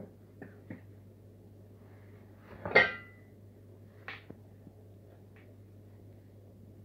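Cat nosing and sniffing at a plastic bag of frozen meat in a bowl: a few faint rustles and clicks, and about three seconds in a single sharp knock that rings briefly, the loudest sound, then a smaller rustle about a second later.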